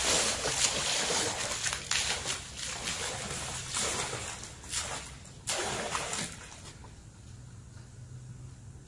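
Water poured from a container splashing into a swimming pool, a dissolved pool-winterizing chemical being added. The splashing is loudest in the first couple of seconds, with a few more splashes midway, then settles to quieter lapping and trickling.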